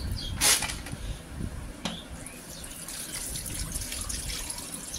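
Water sloshing in a steel pot as pearl millet is rinsed by hand, with a loud splash about half a second in and a smaller one near two seconds. Then the cloudy rinse water is poured out onto a concrete floor, splattering steadily while the grains are held back by hand.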